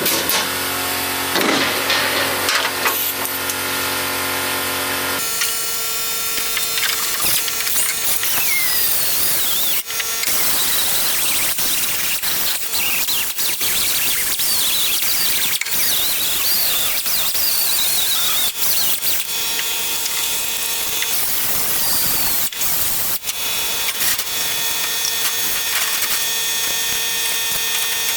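A power tool grinding sheet metal: a steady harsh noise with high, wavering squeals, starting about five seconds in.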